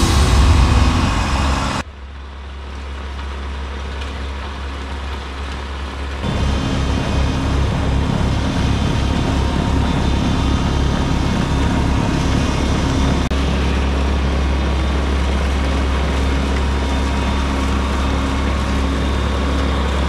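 Kubota B2301 compact tractor's three-cylinder diesel engine running steadily while it drives the snowblower through deep snow, getting louder about six seconds in. Loud music plays for the first two seconds and cuts off.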